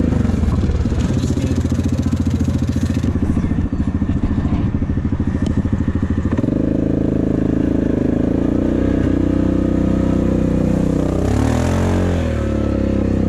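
Yamaha Grizzly 700 ATV engine running under way, heard from the rider's seat. Near the end the engine note briefly bends down and back up as the throttle changes.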